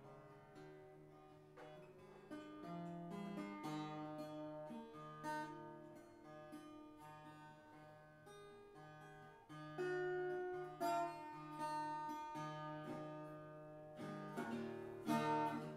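Background music: improvised acoustic guitar played on a koa-wood guitar, melody notes picked over a low bass note that repeats about one and a half times a second. It grows louder about ten seconds in.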